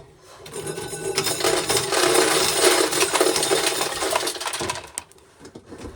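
Corn sheller working an ear of corn, with dry shelled kernels rattling and pattering into a metal pail. The clatter builds about half a second in and dies away after about four seconds.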